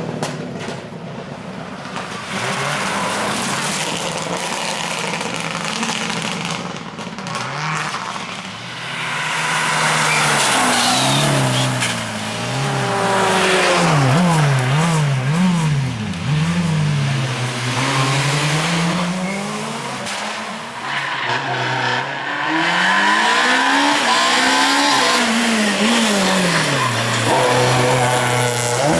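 Rally cars driven hard on a stage, engines revving up and down sharply through gear changes and throttle lifts, with tyre squeal.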